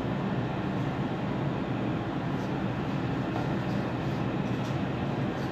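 A steady low mechanical drone with a faint hum in it, holding an even level throughout, with a few faint light clicks.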